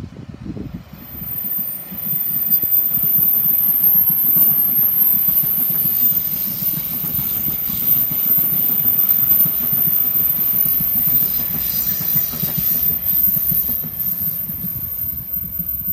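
A Taiwan Railway Taroko Express electric tilting train (TEMU1000) passing close by. The rumble of its wheels on the track builds over the first two seconds, then holds steady, with a thin, very high whine above it.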